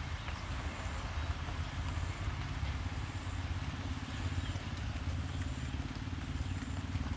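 Steady rain falling, a continuous even hiss flecked with small drop ticks, over a constant low rumble.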